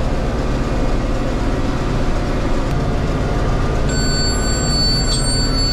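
Tractor engine and round baler running steadily, heard from inside the tractor cab. About four seconds in, the baler's in-cab monitor starts a steady high-pitched beep, the signal before the bale is net-wrapped.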